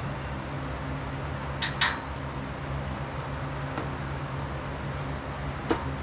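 Sharp metal clinks of a wrench and bolts against the steel uprights and crossbar of a power rack being bolted together: two in quick succession about a second and a half in, and one more near the end, over a steady low hum.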